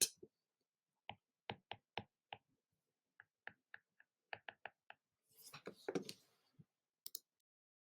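A series of faint, short clicks and taps, in small groups, with a brief rustle near the end.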